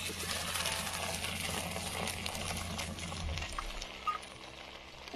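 Hot ghee with fried cashews and raisins tipped into a pot of mutton stew, sizzling sharply, then dying away about three and a half seconds in.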